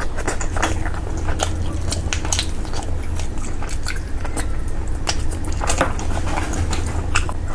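A person chewing food close to the microphone, with frequent short, irregular wet mouth clicks and smacks, over a steady low hum.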